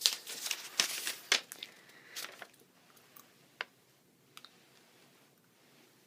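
Rustling and crinkling of a sheet of lined notebook paper being handled for the first two seconds or so, then quiet with a few small clicks.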